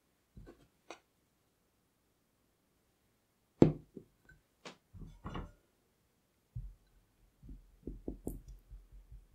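Knocks and clinks against a glass bowl, the loudest about three and a half seconds in, followed by a run of soft quick taps as a silicone spatula stirs the ruby chocolate ganache in the bowl.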